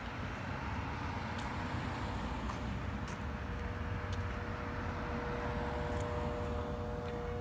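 Street traffic: the steady rush of cars passing on the road. A steady hum holding one pitch grows louder through the second half.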